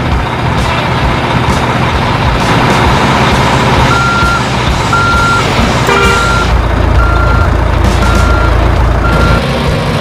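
Truck reversing alarm beeping steadily, about once a second, starting about four seconds in, over a loud, rough engine rumble.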